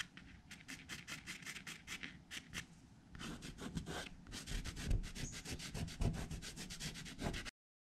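White pastel stick scraping across a drawing in rapid short strokes, about five a second, then fingertips rubbing and blending the pastel into the surface more densely; it cuts off suddenly near the end.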